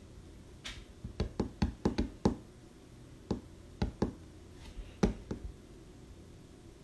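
Fingertips tapping on a smartphone, picked up by the phone's own microphone: about a dozen dull taps in quick irregular bunches with short pauses between them.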